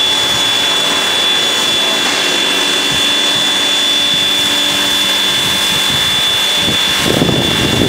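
Steam locomotive passing close by, with a loud steady hiss of steam and a high ringing tone through it. Some low rumbling comes in near the end.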